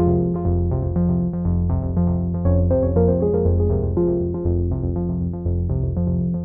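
Background music: synthesizer keyboard playing a quick, even run of notes over a low bass line.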